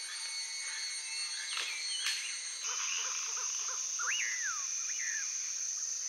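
Evening wetland ambience: a steady, high-pitched insect drone that grows louder about two and a half seconds in, with scattered bird calls, among them a whistle that rises and falls about four seconds in.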